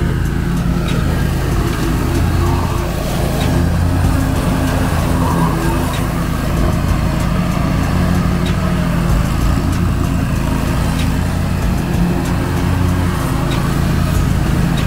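Two-cylinder Kohler engine of a zero-turn ride-on mower running steadily at working speed while the mower cuts through tall grass and brush.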